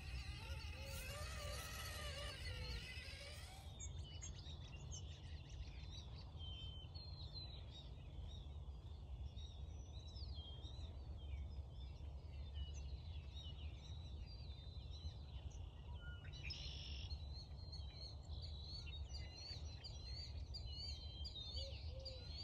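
Outdoor ambience: small birds chirping repeatedly over a steady low rumble. It opens with a wavering pitched sound that cuts off abruptly about three and a half seconds in, and there is a brief rustling hiss about sixteen seconds in.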